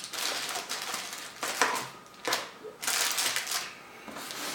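Motherboard box and its packed accessories being handled and put back in: rustling and light knocking of cardboard and packaging in several short bursts.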